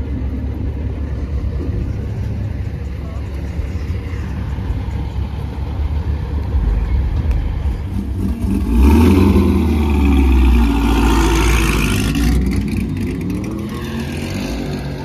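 Vehicle engines running with a low, steady rumble. About nine seconds in, a truck accelerates hard with a loud exhaust blast lasting a few seconds, and its engine note then rises and falls as it pulls away.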